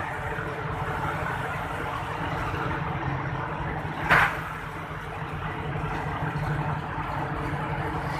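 Construction machinery running steadily, with one short loud noise about four seconds in.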